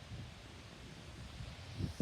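Gusty wind rumbling on the microphone and rustling through trees, with a stronger gust near the end.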